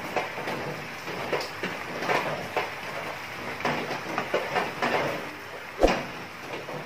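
Soy, oyster sauce and soda boiling hard in a frying pan, bubbling and crackling as it reduces and thickens, while a spoon scrapes through it and ladles it over a whole chicken. A single sharp knock near the end is the spoon hitting the pan.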